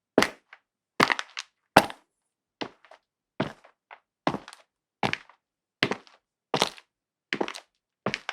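Slow footsteps on a concrete floor: about eleven evenly paced steps, roughly one every 0.8 seconds, each a sharp heel strike followed by a softer tick as the rest of the foot comes down.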